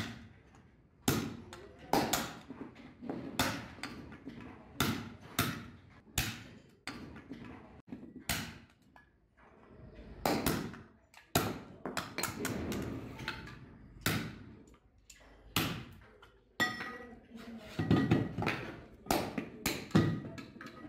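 Hand hammer striking a punch against a steel truck brake shoe: sharp, ringing metal strikes at an uneven pace of one or two a second, with a short pause about eight seconds in.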